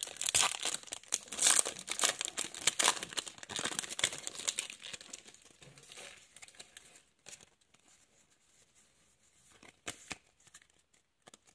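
Foil booster-pack wrapper crinkling and tearing as it is pulled open by hand, a dense crackle for about the first five seconds. It then fades to quiet with a few faint taps.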